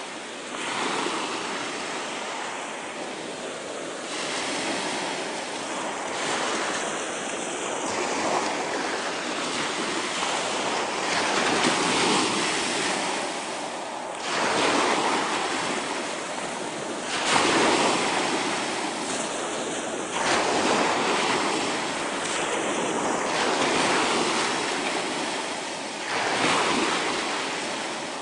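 Small sea waves breaking and washing up a shingle beach, coming in surges every few seconds.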